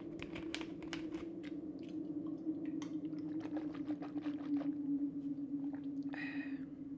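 Plastic bag rustling and crinkling in irregular crackles as a water bottle is handled, over a steady low hum; a short squeak about six seconds in.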